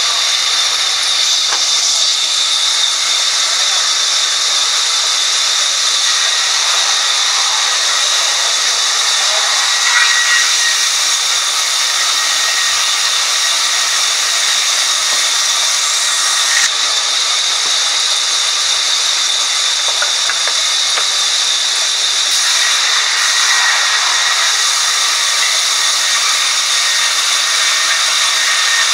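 Sawmill band saw ripping a long wooden plank lengthwise: a loud, steady rushing hiss with a high whine held throughout.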